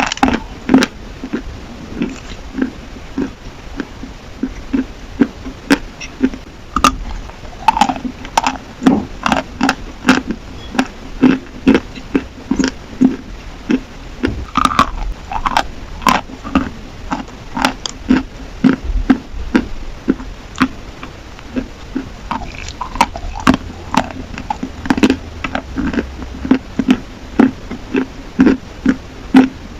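Chalk being bitten and chewed close to the microphone: dry, crisp crunches repeating about twice a second.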